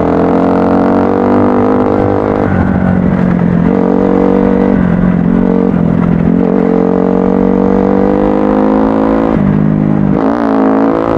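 Kawasaki KX-F off-road motorcycle engine running under way, its pitch climbing steadily in stretches and dropping back several times, with a brief dip near the end.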